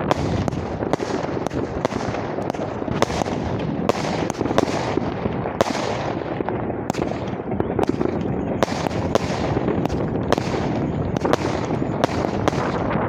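Distant fireworks going off across the town: many irregular, overlapping bangs and pops, several a second at times, each trailing off in an echo, over a steady background rumble.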